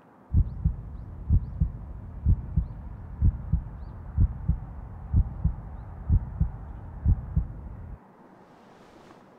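Heartbeat sound effect: a steady lub-dub double thump about once a second, eight beats in all, stopping about eight seconds in. A brief soft hiss follows near the end.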